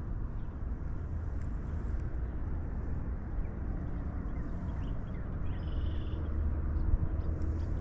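Steady low rumble of wind buffeting the microphone, with no clear events standing out.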